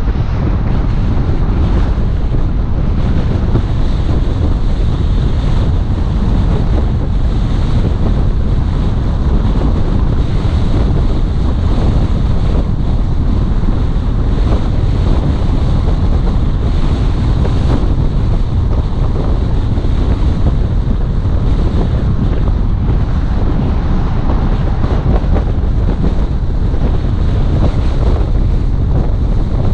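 Steady wind buffeting the microphone: a loud, low, unbroken rush with no pauses.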